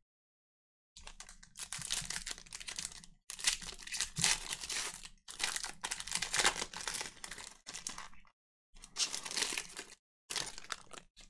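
Trading-card pack wrapper being crinkled and torn open by hand, in several bursts of rustling with short gaps between them.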